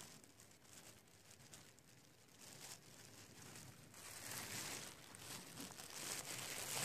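Thin plastic bag crinkling and rustling as it is handled, faint at first and louder in the second half.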